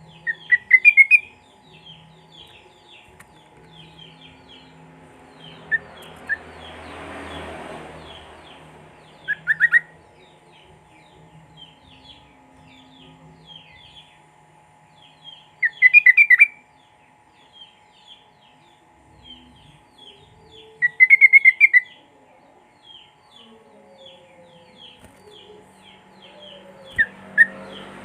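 Sooty-headed bulbul (trucuk) singing in short, rapid trilled bursts, five times, each about a second or less, with fainter chirps of other small birds between them and a faint steady hum underneath.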